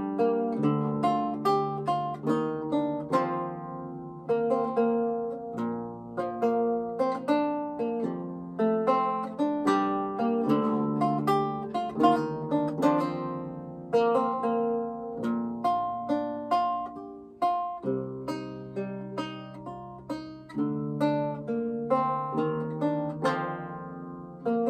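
Eleven-course baroque lute by Martin Haycock played solo: plucked chords and single-note lines over a low bass, each note ringing and dying away.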